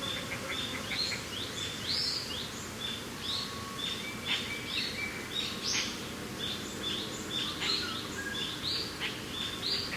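Birds chirping, many short overlapping calls and quick upward notes, over a steady low rush of mountain wind.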